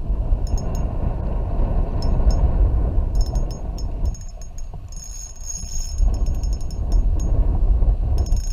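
Wind buffeting the microphone with a steady low rumble. Over it, a spinning reel's drag clicks in short spurts as a hooked redfish pulls line, with a longer, unbroken run of drag about five seconds in.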